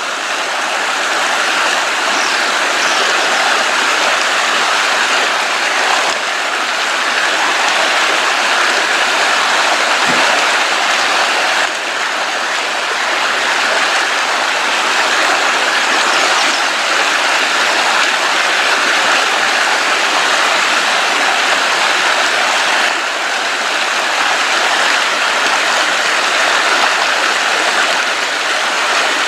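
Creek water flowing steadily, an unbroken rush of water.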